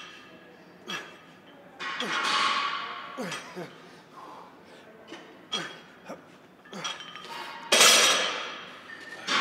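A weightlifter's forced exhales and strained groans while heaving a barbell through upright rows, with a few light metallic clinks from the bar and plates. The loudest rush of breath comes near the end.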